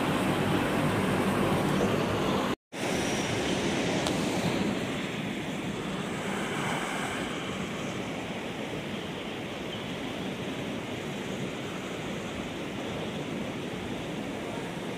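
Steady outdoor rushing noise with no distinct events, cut off briefly about two and a half seconds in and a little quieter from about four and a half seconds on.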